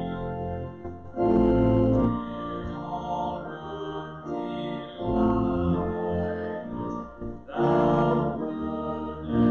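Pipe organ playing held chords that change every second or two.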